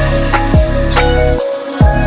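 Background music with a heavy electronic bass and a steady kick-drum beat; the bass drops out briefly near the end.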